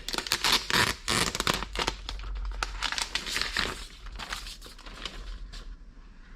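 Packaging being handled during an unboxing: irregular crinkling and rustling, busiest in the first couple of seconds and thinning out toward the end.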